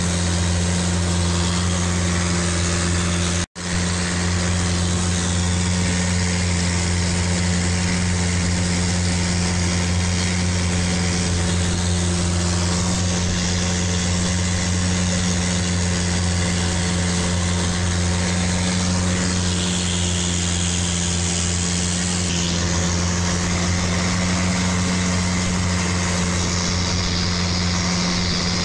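Longtail boat's engine running steadily under way, a low even drone with a hiss over it. The sound drops out for an instant about three and a half seconds in.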